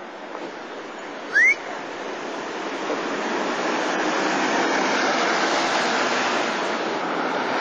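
City street traffic: a rushing noise that swells about three seconds in as vehicles pass close, with one short, high, rising squeak about a second and a half in.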